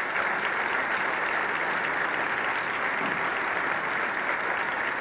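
Audience applauding: dense, steady clapping from a large group.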